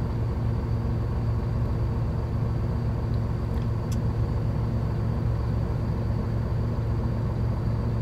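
Steady low hum of a Hino Profia truck's diesel engine idling, heard from inside the cab, with a few faint ticks about midway.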